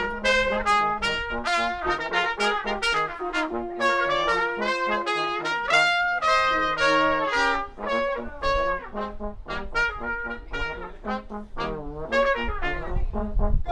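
A brass quartet of trumpets and trombone playing an upbeat pop-funk arrangement, several parts moving at once in short rhythmic notes. Wind rumbles on the microphone now and then, most clearly near the end.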